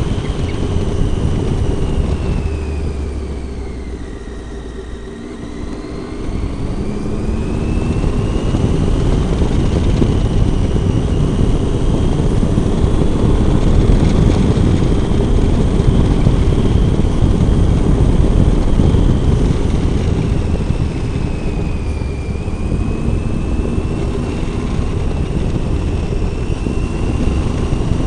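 Triumph Tiger 800's three-cylinder engine running under way, with wind noise. About four seconds in the engine note and level drop as the throttle eases off, then climb again as it pulls away.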